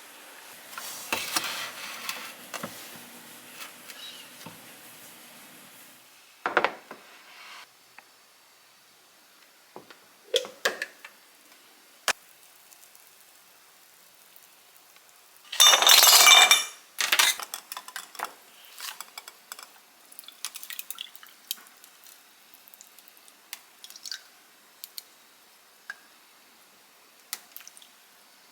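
Kitchen handling sounds: glass containers and utensils clinking and being set down in scattered knocks, with a louder rush of noise lasting a second or so about halfway through.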